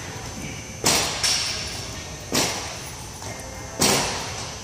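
Repeated jump landings on a resistance-band jump-training platform: three sharp thuds about a second and a half apart, each dying away over about a second.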